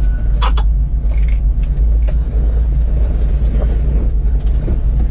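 Steady low vehicle rumble with a few faint clicks.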